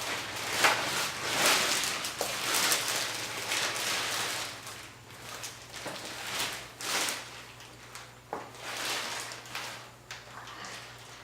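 Crankshaft being cleaned: a run of irregular swishing, hissing noises, each lasting from half a second to a couple of seconds, over a faint steady low hum.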